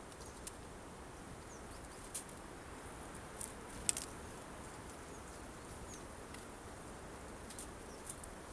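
Tits at a bird feeder giving a few faint, thin, high chirps, with several sharp clicks scattered among them, the loudest about four seconds in.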